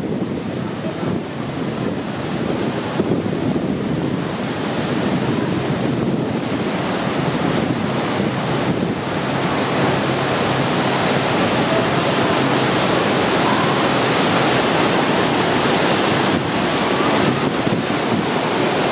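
The steady rush of Niagara's Horseshoe Falls at close range, mixed with wind buffeting the microphone. It grows louder and brighter over the second half as the boat moves into the mist.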